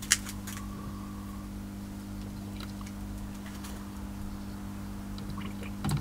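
A steady low hum, with a sharp click just after the start and a knock near the end as a hand reaches in toward the electrode water heater.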